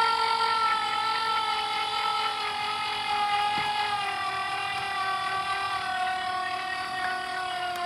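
Electric trailer tongue jack motor whining as it lowers the tongue onto a tongue-weight scale, its pitch falling slowly and evenly as the load builds.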